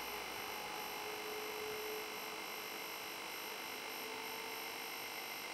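Faint steady hum and hiss, with a few thin tones that fade in and out.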